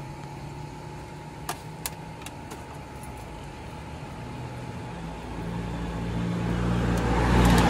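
A motor vehicle passing on the road, its engine growing louder over the last few seconds and loudest near the end, over a steady low background hum with a few light clicks early on.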